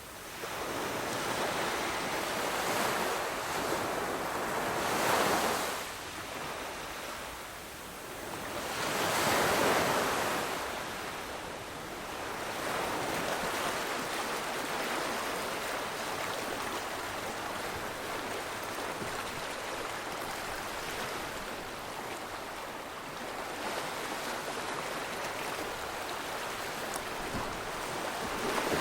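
Surf: waves washing in, rising and falling with two louder surges about five and nine seconds in, then settling into a steadier rush of water.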